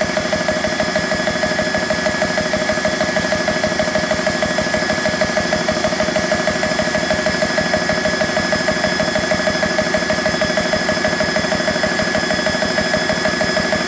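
BSA high-pressure air compressor running under load near the end of a fill, its pump pulsing rapidly under a steady whine. The speaker likens its chugging to an old traction engine.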